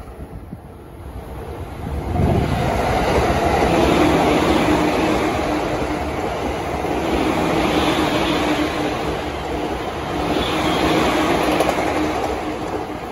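A green-and-orange striped JR electric commuter train passing at speed. The wheels rumble on the rails with a steady hum. It swells in about two seconds in and eases off near the end.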